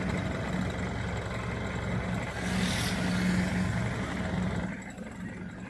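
Toyota Hilux engine running just after starting on the crank, which shows the crank-no-start fault is cured. It revs up briefly about two and a half seconds in, then settles back toward idle near the end.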